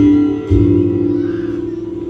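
Acoustic guitar strummed at the start and again about half a second in, the chord then left to ring and slowly fade.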